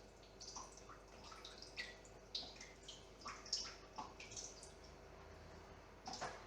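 Water dripping from the drain tube of a PC's water-cooling loop into a bucket: faint, irregular drips about twice a second, each a short plink falling in pitch.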